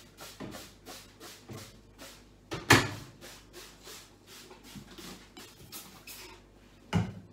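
Cloth wiping and scrubbing the microwave's surfaces in repeated quick strokes. There is a sharp knock against the microwave about three seconds in, and another near the end.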